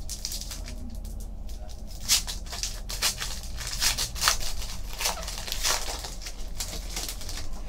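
Foil wrapper of a Panini Contenders football card pack crinkling and tearing open in the hands: a run of sharp crackles, loudest about two seconds and four seconds in.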